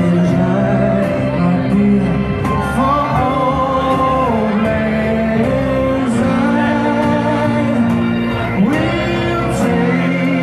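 Music with a singing voice over steady accompaniment.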